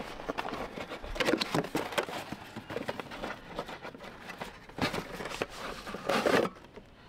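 Cardboard box being handled and opened by hand: irregular rustling, scraping and tapping of the cardboard flaps, with louder rustles about a second in and again near the end.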